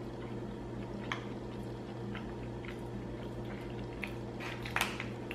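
A person chewing a mouthful of sausage and mashed potatoes, with a few soft wet mouth clicks and smacks over a low steady hum.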